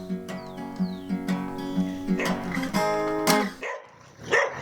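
Acoustic guitar playing a steady, repeating pattern of notes, which stops about three-quarters of the way through, followed by a couple of short, irregular noises.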